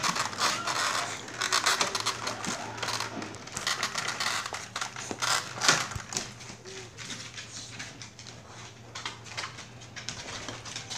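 A puppy moving about at a wooden baby gate and on a hardwood floor: scattered clicks and knocks from its paws and the gate, busier and louder in the first half.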